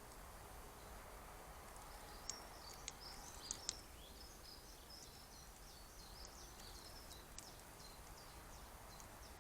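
Small birds giving many short, high chirping calls from about two seconds in, with a handful of sharp ticks mixed in, loudest between about two and four seconds, over a faint steady background.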